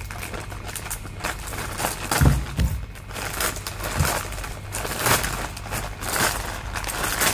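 Plastic courier mailer bag and plastic wrapping being pulled open and crinkled by hand: repeated irregular rustles, with a few dull bumps from handling, the loudest about two seconds in.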